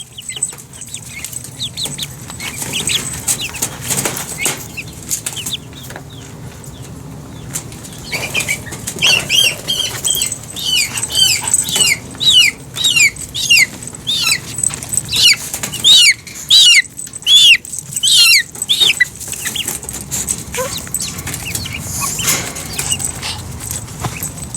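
Young chickens peeping: a run of short, high calls, each falling in pitch, one or two a second, from about eight seconds in to nearly twenty. Wings flap and bodies scuffle around the calls.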